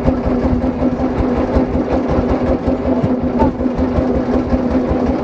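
Small boat's engine idling steadily: a constant hum over a rapid low chugging.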